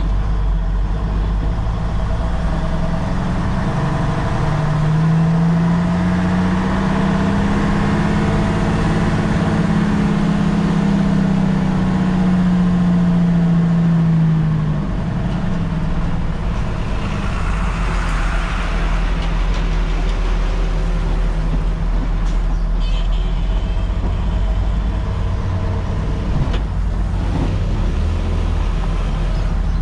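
Nissan CK31L concrete pump truck's diesel engine running on the move, heard from the cab. Its note climbs and then eases back down over about ten seconds partway through.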